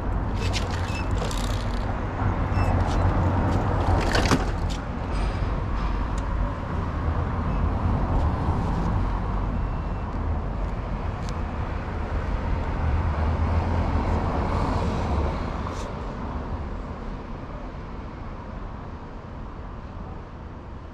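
Road traffic noise with passing cars, a steady rumbling hiss with a few sharp clicks, the loudest about four seconds in. It grows quieter after about fifteen seconds.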